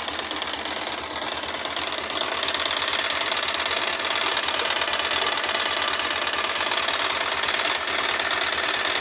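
Honda NX-400 Falcon's single-cylinder engine idling with a fast, steady ticking clatter from the cylinder head. The noise shows only while the bike leans to the left, the magneto side, on its side stand, and stops when it is stood upright.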